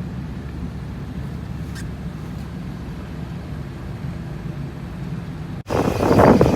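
Steady low rumble of a vehicle driving. It cuts off suddenly near the end and loud gusting wind on the microphone takes over.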